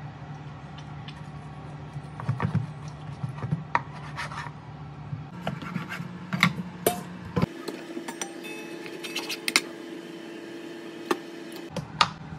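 A meat cleaver cutting through raw liver, knocking and scraping on a wooden cutting board in a string of sharp, irregular strokes, over a steady low hum.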